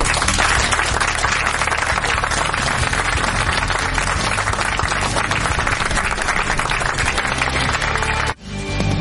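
Studio audience applauding over background music. Near the end both break off suddenly for a moment, and then the music carries on.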